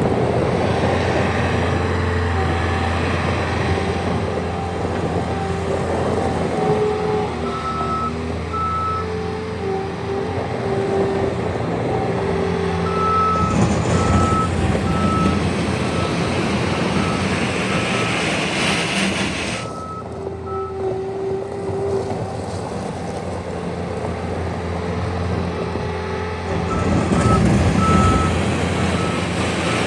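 Bobcat S76 skid steer loader's 74 hp turbo diesel engine running while the machine is driven around, with its back-up alarm sounding several runs of short, evenly spaced beeps as it reverses.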